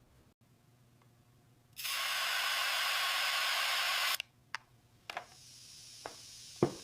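A steady spraying hiss starting about two seconds in, lasting about two and a half seconds and cutting off sharply. A few light clicks and knocks follow, the loudest near the end, over a fainter continuing hiss.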